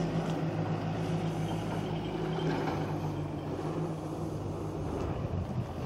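A vehicle engine running steadily at a low idle-like pitch.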